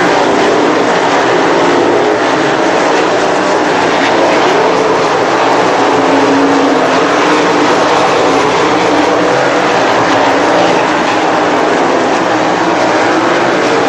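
360 winged sprint cars racing, their V8 engines making a loud, steady drone whose pitch wavers as the cars throttle through the turns.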